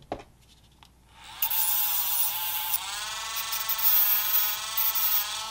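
Small handheld rotary tool with a cutoff wheel spinning up about a second in and running with a steady high whine while the wheel cuts through thin brass rod, the pitch dipping slightly under the load; it starts to wind down at the end.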